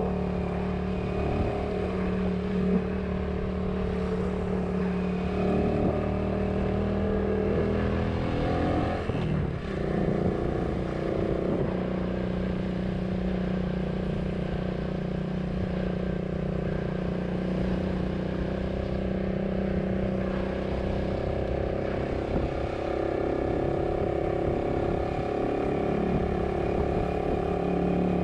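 Motorcycle engine running steadily while riding along a road. Its note dips briefly about nine seconds in, then settles again.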